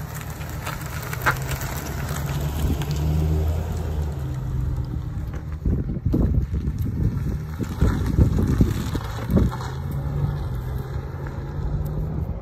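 GMC Sierra pickup truck driving past and away, its engine humming steadily at first. It is loudest and roughest as it passes close about halfway through, then eases off as it heads down the road.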